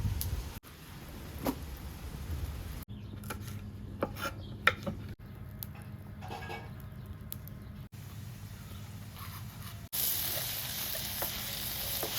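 Cooking sounds in several short cuts: utensils clinking and scraping against a pot while food is stirred, then a steady hiss in the last couple of seconds.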